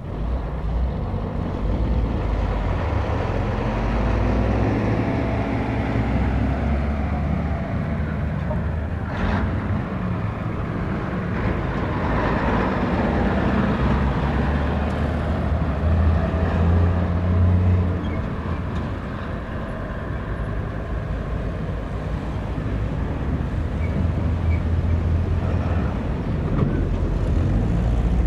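Truck traffic: heavy trucks and other vehicles driving past on a road, engines running under a continuous road din that swells and fades as each one passes.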